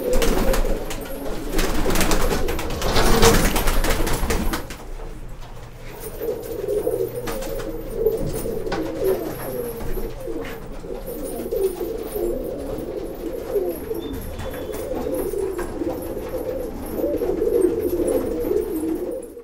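Domestic pigeons cooing, several calls overlapping without a break. For the first few seconds there is also feather rustling and handling noise as a pigeon's wing is spread out by hand.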